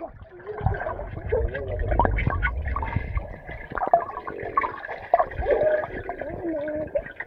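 Swimming-pool water heard through a microphone held underwater: muffled sloshing and gurgling with a low rumble, strongest about two seconds in. Muffled, wavering voices from above the surface come through, most clearly in the second half.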